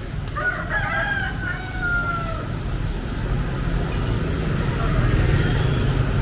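A rooster crows once, a call of about two seconds ending in a long drawn-out note, over a steady low rumble of street background.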